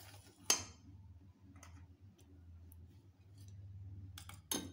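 Light metal clinks of a wire whisk and small steel bowl against a steel mixing bowl of dry gram flour. One sharp ringing clink comes about half a second in, a few faint ticks follow, and a couple more sharp clinks come near the end as the chilli powder bowl is tipped in. A low steady hum runs underneath.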